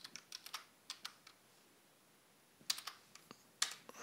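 Computer keyboard keys being typed: a few quick keystrokes, a pause of over a second, then a second short run ending in a sharper, louder key press.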